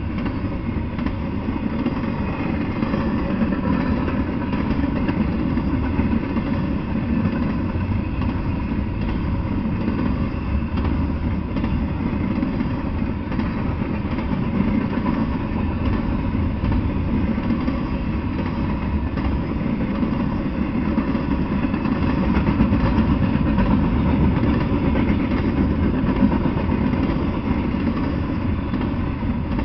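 Double-stack intermodal freight train rolling past: a steady rumble of steel wheels on rail, a little louder about three-quarters of the way through.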